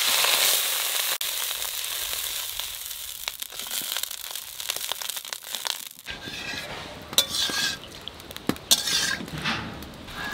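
Water poured into a hot aluminium karahi of oil with nigella seeds and green chillies, hitting the oil with a loud sizzling hiss that settles into a steady sizzle. After about six seconds a metal ladle stirs in the pan, with a few sharp clinks.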